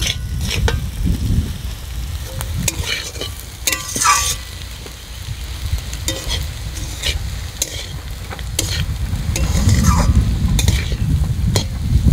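Eggs and spiced potatoes frying in a pan while being stirred: a steady sizzle with scattered scrapes and clicks of the stirring utensil against the pan.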